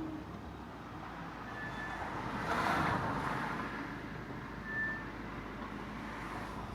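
Ford C-Max driving, with steady road and tyre rush and a louder swell about two and a half seconds in. The steady whine heard just before has stopped.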